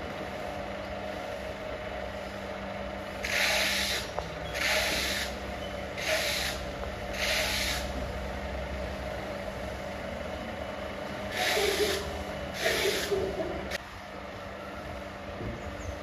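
Trowel scraping across a cement-plastered wall in six short strokes of about half a second each, four close together and then two more a few seconds later, over a steady low hum.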